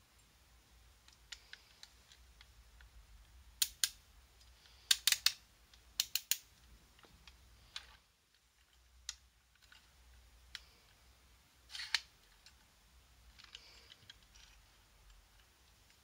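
Sharp, irregular clicks and taps from a 1:25 diecast Manitou telehandler model handled in the hands, its plastic and metal parts clicking as it is turned over and its boom moved. Some clicks come singly and some in quick groups of two or three.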